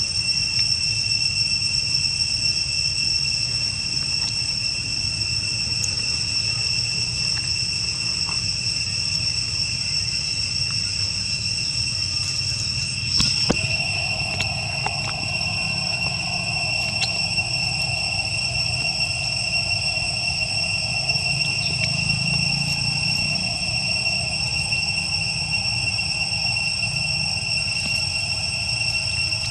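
Steady high-pitched insect chorus, a continuous drone at two steady pitches, over a low rumble. A sharp click comes about 13 seconds in, and a lower steady tone joins in just after.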